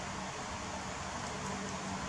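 Steady room noise: an even hiss with a faint low hum underneath.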